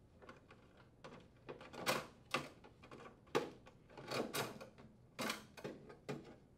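A metal-can compressor capacitor being worked loose and drawn out of its mounting strap inside a sheet-metal control box: a run of irregular clicks, knocks and short scrapes, the sharpest about two seconds in and again halfway through.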